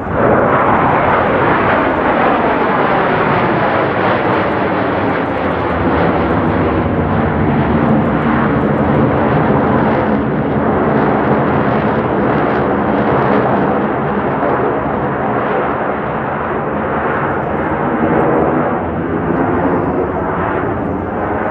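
Blue Angels F/A-18 Super Hornet jets flying past, loud jet engine noise that comes in suddenly and holds for about twenty seconds, with falling tones sweeping through it.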